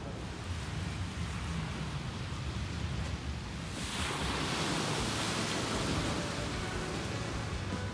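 Ocean surf washing onto the beach, a wave's rush swelling up about four seconds in, over a low rumble.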